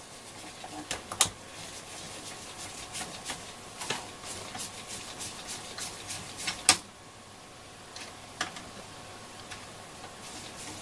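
Scattered small clicks and light handling noise of screws being fitted back into a transistor radio's case with a screwdriver, with one sharper click about two-thirds of the way through.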